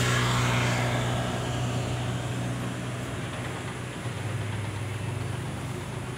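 An engine running steadily with a low hum that slowly fades, dropping slightly in pitch about four seconds in.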